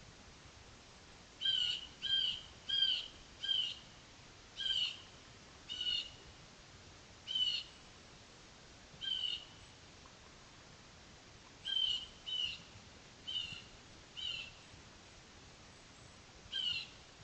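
A short, high call repeated about thirteen times at uneven gaps, each call well under half a second, over a faint steady hiss.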